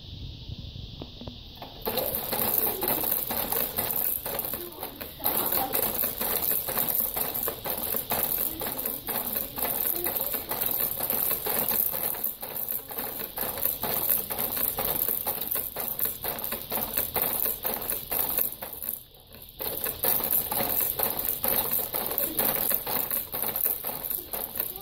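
Fisher-Price baby activity jumper rattling and clattering rapidly as a baby bounces in it, its frame, springs and tray toys knocking many times a second. It starts about two seconds in and stops briefly near the end.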